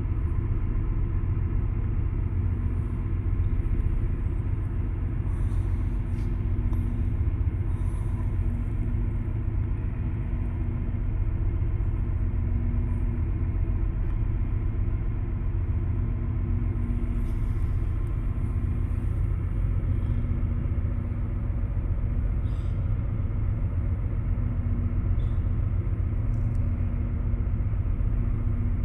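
Steady low rumble of heavy machinery running, with a faint hum that comes and goes.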